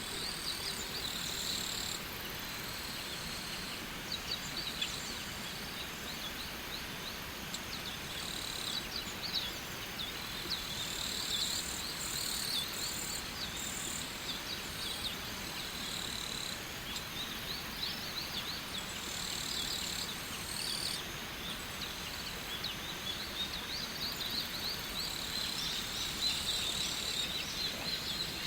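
Steady rush of falling water from a waterfall, with frequent short, high chirping calls over it.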